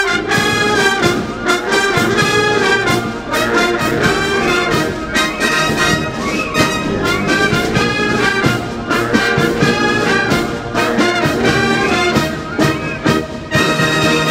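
Marching brass band playing a march in rhythmic short notes, trumpets and trombones to the fore, closing the phrase on a held chord near the end.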